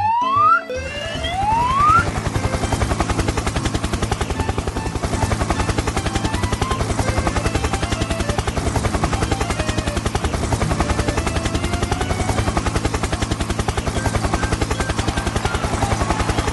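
Cartoon helicopter sound effect: a rapid, steady rotor chop at an even level, starting about a second in just after a short rising whistle-like glide.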